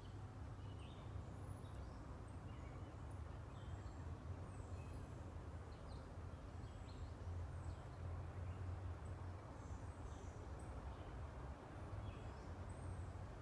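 Songbirds chirping and calling in woodland, many short high calls scattered throughout, over a steady low rumble.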